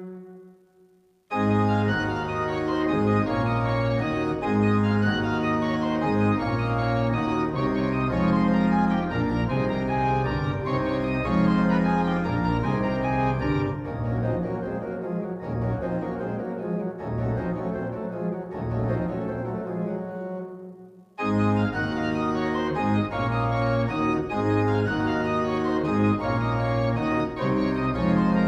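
Church organ playing the postlude after the benediction: full sustained chords over a low bass line. It begins about a second in after a moment of silence, stops briefly about two-thirds of the way through, then carries on.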